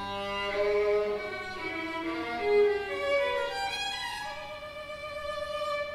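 A violin playing a slow melody of held notes, from a recording played back in the room.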